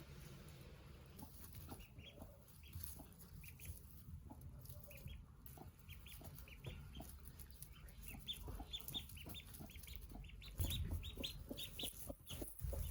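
Newly hatched ducklings peeping faintly in many short, high notes that grow busier about halfway through, with a broody hen clucking softly among them.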